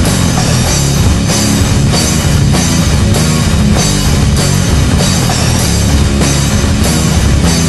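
Hardcore/groove metal band recording: distorted electric guitars, bass and a drum kit playing loud and dense, with cymbal and snare hits landing on a steady beat, about two a second.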